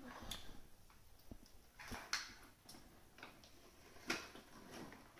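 A few faint knocks and clicks of plastic and wooden toys being handled on a hard floor, the clearest about two seconds in and again about four seconds in.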